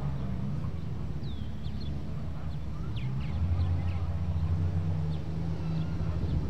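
A truck engine running steadily at low revs, its rumble growing a little stronger about three seconds in, with short high chirps over it.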